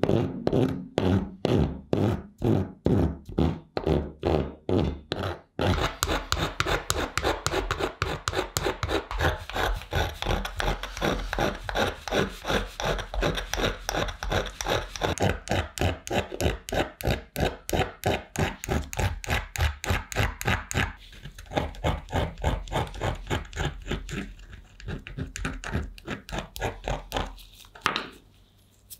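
Hand files rasping back and forth over a small cast-metal lever from a vintage bread slicer, first with a flat file and later with a needle file. The strokes come about two a second at first, get quicker from about six seconds in, and stop near the end.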